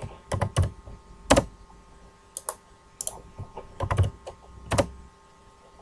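Computer keyboard typing and mouse-button clicks as a value is entered in a dialog box: about a dozen short, sharp clicks at uneven intervals, the loudest about 1.4 s in.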